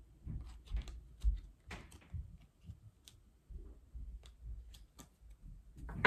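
Tarot cards being handled: scattered light clicks and taps as cards are drawn and laid down, with a louder swish of cards sliding near the end.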